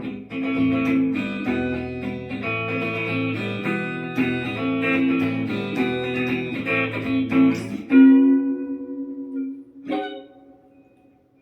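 Electric guitar played through a Positive Grid Spark Go modeling amp: a run of picked notes and chords ending on a held note about eight seconds in, then one last strum that fades away.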